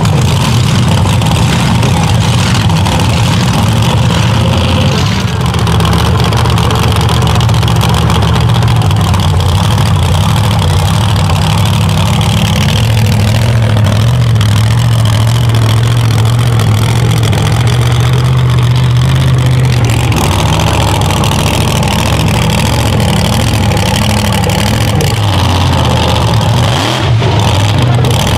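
1520 hp King Sling mega truck's engine running loud and steady, a deep droning note that shifts about two-thirds of the way through.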